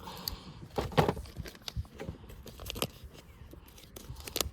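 Irregular clicks, knocks and rustling from fishing tackle being handled, the sharpest knock about a second in.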